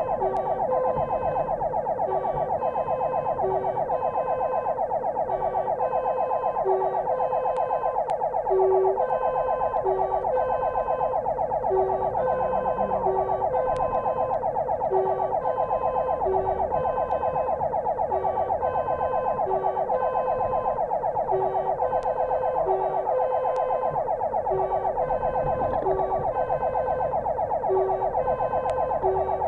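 Emergency-vehicle siren sounding without a break on a fire engine's run, heard from inside the cab: a fast warble, with a second tone repeating about every one and a half seconds.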